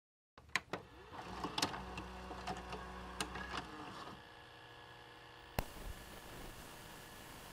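Faint electronic clicks and crackles over a low hum, then a sharp click about five and a half seconds in, after which a steady static hiss sets in, like a dead analog broadcast signal.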